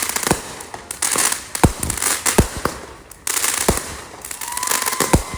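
Fireworks going off: a run of sharp bangs, roughly two a second, over a continuous crackling hiss.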